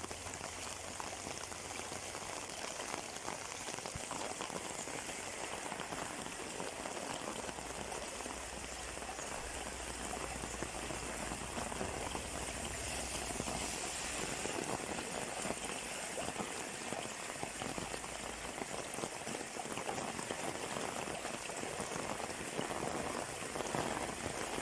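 Heavy rain falling steadily, its drops hitting an umbrella overhead: a dense, even hiss made of many fine ticks.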